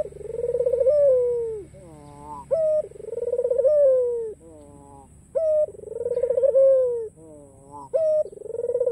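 A white Barbary dove (puter) cooing its repeated song phrase, about every three seconds: a short high note, a long rolling coo that falls in pitch, then a run of short falling notes.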